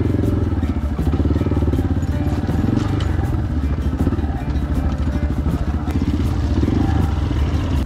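Yamaha XT250 dual-sport motorcycle's single-cylinder four-stroke engine running steadily, close to the microphone, as the bike rides along a rocky dirt trail.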